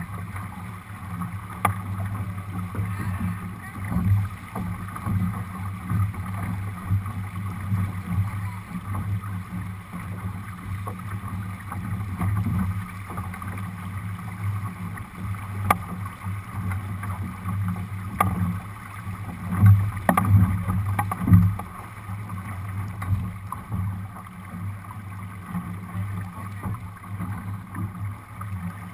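Steady rush of water along the hull of a Lightning-class sailboat under sail, with a few brief sharp clicks scattered through.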